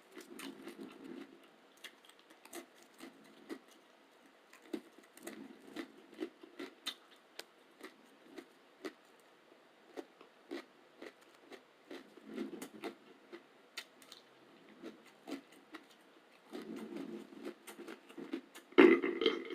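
Close-up chewing of gluten-free roasted garlic crackers: scattered crisp crunches and wet mouth clicks, coming irregularly, with a short, louder throaty sound near the end.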